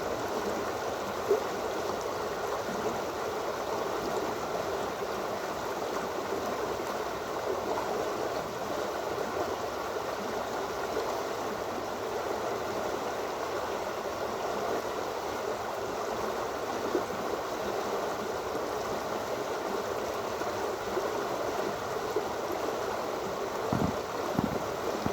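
Fast-moving floodwater rushing steadily along an overflowing canal after heavy rain, with a few brief knocks near the end.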